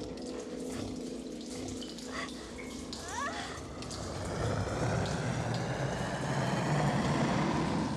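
Film soundtrack: a rushing, hissing noise that swells louder from about halfway through, over low sustained tones, with a few brief rising whistle-like glides near the middle.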